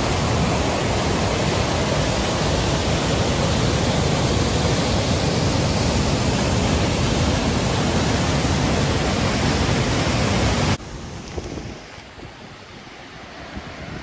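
Loud, steady rush of a fast, rain-swollen river tumbling over rocks close below a waterfall, the water running muddy brown. About eleven seconds in it cuts off suddenly to a much fainter rush of water with wind on the microphone.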